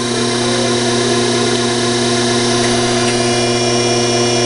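Metal lathe running at a steady speed, a constant hum with a whine, turning a straightened steel shaft while it is checked for runout with a dial indicator.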